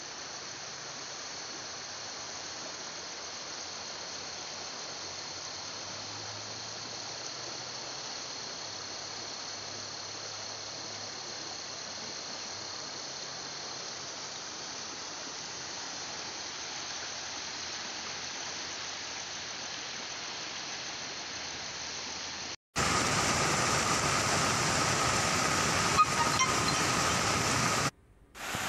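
Steady rushing of a swollen, muddy flooded river. About three-quarters of the way through it cuts abruptly to a louder rushing noise with a steady high tone and one sharp knock, then drops out briefly near the end.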